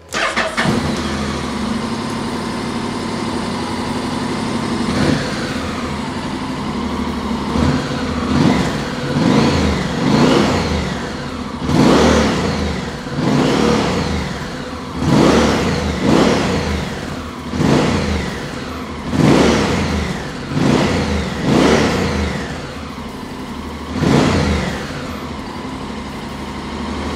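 Honda X-ADV 750's 745 cc parallel-twin engine starting and idling, then revved with about a dozen short throttle blips, each rising and falling in pitch, before settling back to idle near the end.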